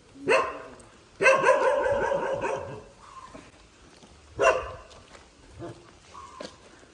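A dog barking three times, the middle bark drawn out for about a second and a half.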